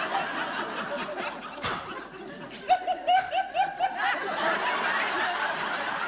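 Theatre audience laughing together. About halfway through, a single voice breaks out laughing loudly in a quick run of short ha-ha syllables over the crowd.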